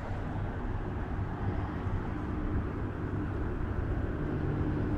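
Steady low rumble of busy multi-lane highway traffic heard from high above, with faint music fading in near the end.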